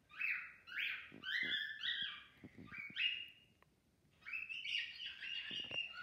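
Cockatiel whistling a rambling song: a run of short notes that jump up and down in pitch, a brief pause a little past halfway, then another run of notes.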